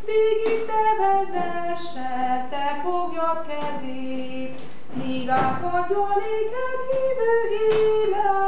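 A woman singing solo, a slow melody in long held notes.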